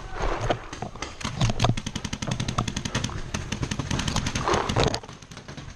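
Paintball markers firing rapidly: a fast string of sharp pops, about ten a second, starting about a second in and stopping near the end.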